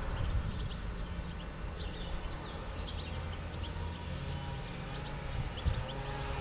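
European goldfinches twittering: a quick scatter of short, high chirps over a low rumble. A faint steady hum comes in near the end.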